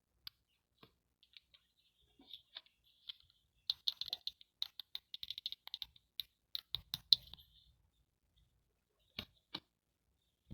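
Small plastic toy pieces clicking and tapping as they are handled, in quick irregular runs that are densest in the middle, with two sharper clicks near the end.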